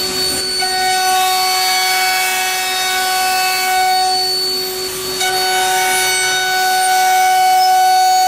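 Mazak Variaxis 630-5X II T machining centre's high-speed spindle end-milling a metal plate. A steady whine runs throughout, and a ringing cutting tone of several pitches starts just under a second in, breaks off briefly about five seconds in, then resumes.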